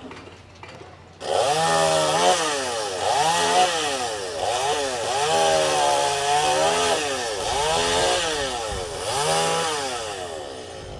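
A buzzing, warbling sound effect starts suddenly about a second in; its pitch swoops down and back up roughly once a second over a hiss, and it fades near the end. It plays as the paper cocoon on the puppet stage transforms and splits open into wings.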